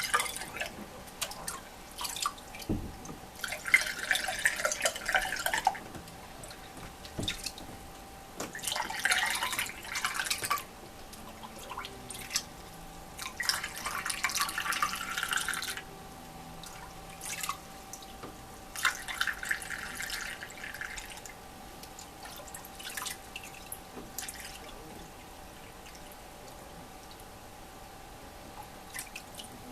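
Water poured from a cup into a Marineland Magnum 250 canister filter to prime it: about five pours of a couple of seconds each, with drips and small knocks between. Only drips and faint ticks follow in the last several seconds.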